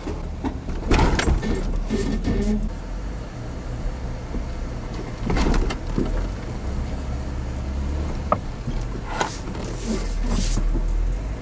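Jeep Wrangler engine running low and steady as it crawls over a rocky trail, with several sharp knocks and scrapes as it goes over the rocks, one about a second in and a few more in the second half.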